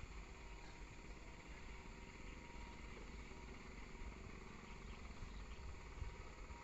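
Faint, steady chirring of insects, such as crickets, over a low rumble.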